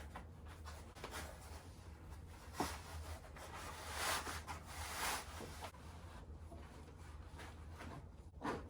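Faint handling noise as the second arm of an animatronic clown is fitted onto its torso frame: rustling and rubbing of the costume sleeve and plastic parts. There is a sharp click about two and a half seconds in and a louder rustle around the middle.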